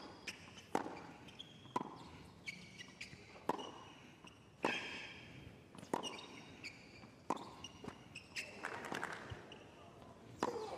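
Tennis rally on a hard court: crisp racket strikes and ball bounces about once a second, with short high shoe squeaks on the court surface between shots.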